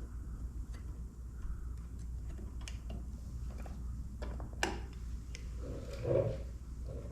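Scattered, irregular light clicks and taps of hands handling a motorcycle turn-signal light and its fittings, with a sharper click partway through and a dull knock about six seconds in, over a steady low hum.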